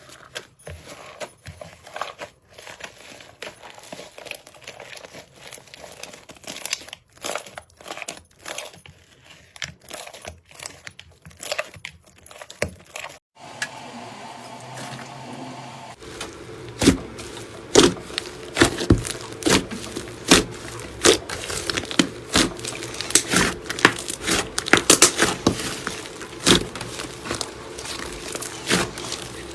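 Slime being squeezed and pressed, giving many small crackling pops and squelches. Past the middle the pops become louder and sharper.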